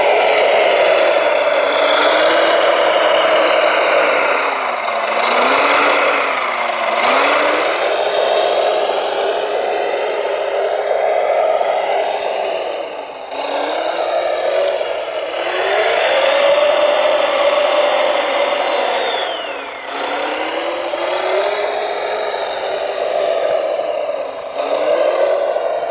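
Radio-controlled scale construction vehicles running, their motors whining and rising and falling in pitch again and again as they speed up and slow down.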